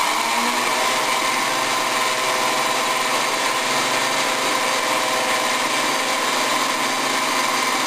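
Countertop blender motor running steadily at full speed, mixing milk and chocolate protein powder.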